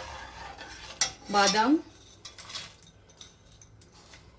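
Metal spoon stirring milk in a stainless steel pot, scraping and clinking against the pot, with a sharp clink about a second in.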